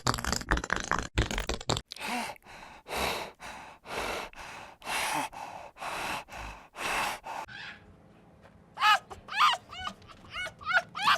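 Animal sounds: breathy pulses about once a second, then a quick run of chirping calls from about nine seconds in.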